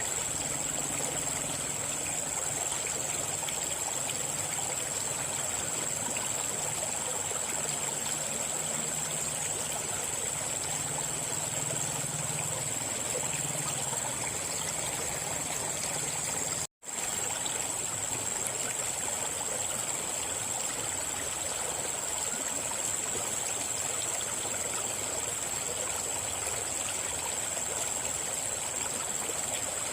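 River water flowing in a steady, continuous rush, with a thin, constant high tone above it and a faint low hum during the first half. All sound drops out for a split second a little past the middle.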